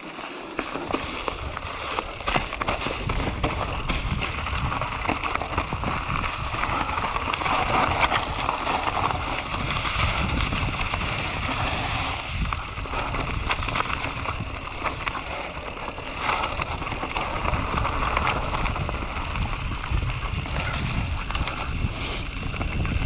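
Enduro mountain bike riding downhill on a singletrack: tyres rolling over dry leaves and stones, with many small clicks and rattles from the bike, over a steady low rumble.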